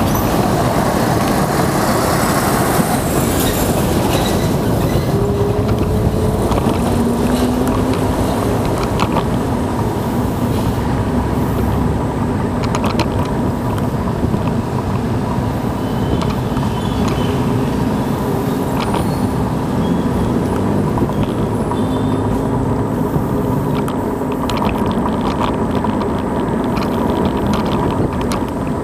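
Wind rushing over the microphone and road rumble while riding a Xiaomi M365 Pro electric scooter: a steady, loud noisy rush heaviest in the low end, with faint humming tones coming and going.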